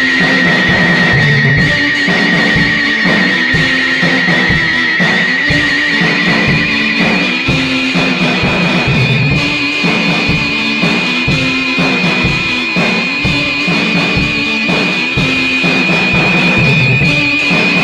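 Lo-fi garage rock music without vocals: a drum kit and guitar play a repeating riff under a held high note that steps up in pitch about six seconds in.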